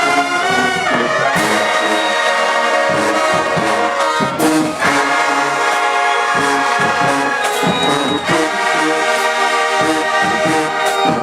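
A brass band playing loudly, with held chords changing from one to the next and a few sharp accented hits.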